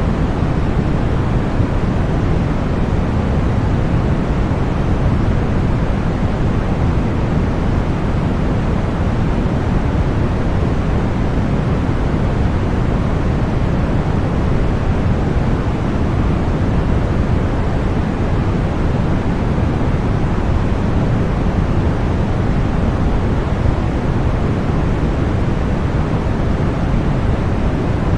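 Steady, electronically generated noise of the kind sold as white noise: an unbroken, unchanging hiss with no pattern or events, weighted toward the low end and thinning out in the highs.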